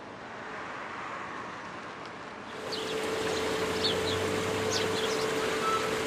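Outdoor street ambience: an even rush of noise, then from about two and a half seconds in a steady hum with short, high chirps of small birds.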